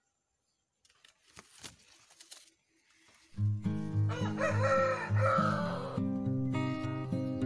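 Faint rustles and clicks, then guitar music with a steady low beat starts about three seconds in, and a rooster crows once over it for about two seconds.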